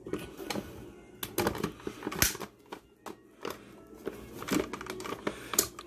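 Several irregular plastic clicks and knocks as the lid is fitted onto a Ninja food-processor bowl and the bowl is set onto its motor base.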